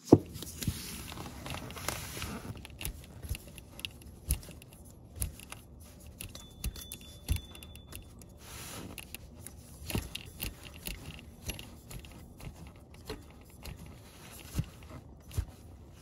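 Belt tensioner idler pulley being turned by hand, its bearing giving a faint rough whir with scattered light clicks and rattles, after a sharp knock at the start. The bearing has a little noise but no play, which the mechanic doesn't think is that bad.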